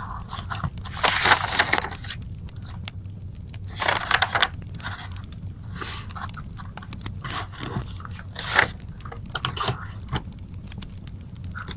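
Wood fire crackling with small scattered pops over a low steady rumble, and three louder scraping noises about a second, four seconds and eight and a half seconds in.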